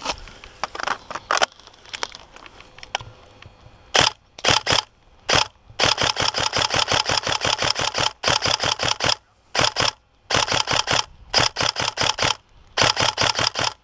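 Airsoft electric rifle, a custom Tokyo Marui Next Gen SCAR-L, firing full-auto in a series of bursts starting about four seconds in, one long and several short, each a rapid, even clatter of shots from the cycling gearbox. Close and loud from the camera mounted on the rifle, with a few scattered clicks before the first burst.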